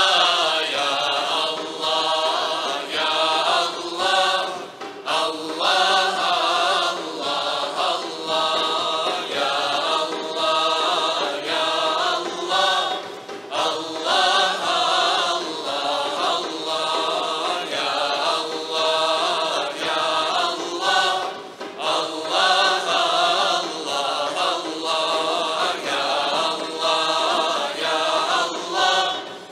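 Choir singing an ilahija, a Bosnian Islamic devotional hymn, in phrases of a few seconds each, accompanied by hand drums.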